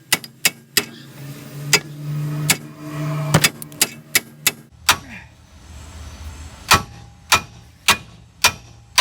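Repeated hammer blows on steel, over a dozen sharp strikes in uneven bursts with a short pause in the middle, driving a seized, worn-out ball joint out of the steering knuckle.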